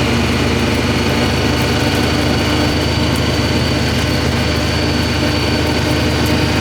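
Steady engine and road noise inside a moving car's cabin, an even low hum with a thin high whine running through it.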